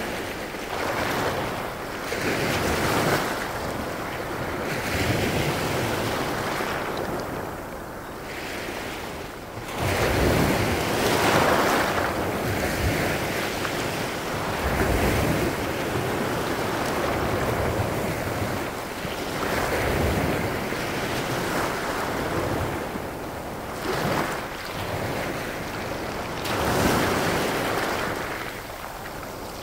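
Small Baltic Sea waves breaking and washing in over a pebble beach, the surf swelling and falling back every few seconds, loudest about ten seconds in.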